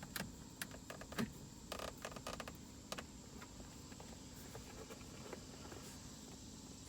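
Light clicks and taps of screws being handled and driven by hand into car interior plastic trim, with a small cluster about two seconds in. After about three seconds only a faint steady background is left.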